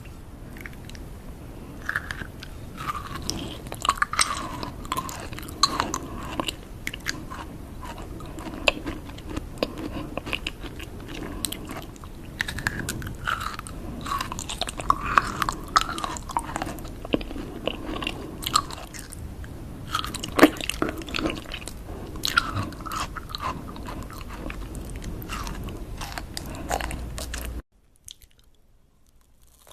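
Close-up mouth sounds of eating: chewing, crunching bites and wet lip-smacking, with many sharp clicks. It cuts off suddenly near the end.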